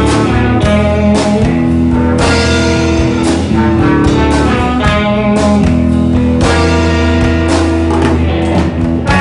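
A jazz quartet playing live: electric guitar, electric bass and drum kit, with trombone, in steady time.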